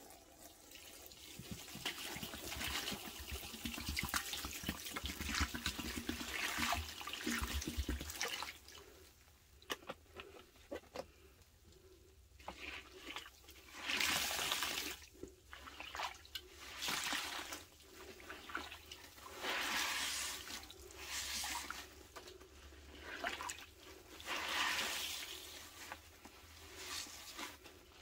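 Water pouring from a spout onto wet porous sponges in a stainless steel bowl for about eight seconds. Then the soaked sponges are squeezed by hand again and again, each squeeze a short squelch of water running out, coming every two seconds or so.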